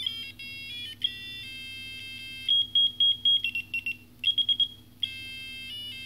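Hello Kitty LED alarm clock's buzzer playing its electronic alarm melodies, high beeping tunes. The tunes change several times as the alarm tones are stepped through, one of them a rapid string of repeated beeps.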